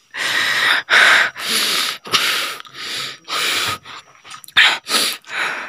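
A person breathing hard in a rapid series of loud, harsh rasping breaths, about two a second, with a short pause a little before the end.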